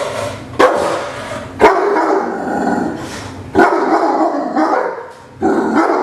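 Neapolitan Mastiff barking aggressively in about four sudden loud outbursts, each trailing off over a second or so; the barking of a dog with severe aggression issues.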